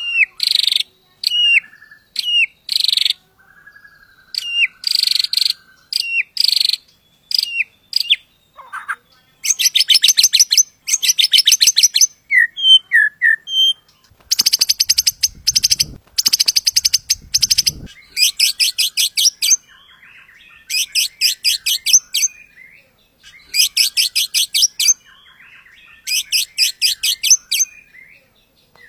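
White-rumped shama singing in full voice: a string of short, clear whistled notes, then from about nine seconds in, long rapid rattling trills of one to three seconds each, repeated with short pauses.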